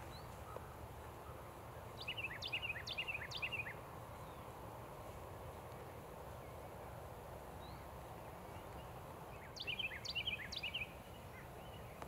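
A small songbird singing two short phrases of quick, high notes, a few seconds apart, over a steady low rumble of background noise.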